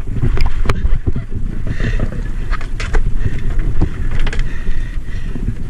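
Wind buffeting the microphone of a small open wooden boat under way through choppy sea, with waves splashing against the hull and several sharp knocks.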